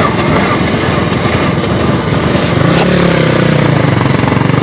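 Dirt bike engine running as the bike pulls away, heard over loud, steady engine noise close by.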